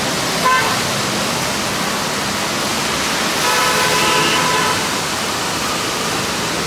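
Traffic on a waterlogged road: a steady hiss of tyres cutting through standing water and throwing up spray. A short horn toot sounds about half a second in, and a car horn sounds for about a second at around three and a half seconds in.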